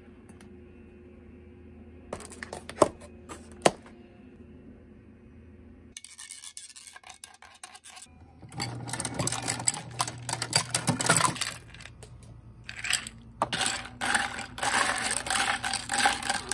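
Kitchen handling sounds while an iced coffee is made: two sharp clinks of glass or dishware a few seconds in, then long stretches of loud rattling and scraping as ice and coffee are stirred in a glass and the drink is topped up under a coffee machine.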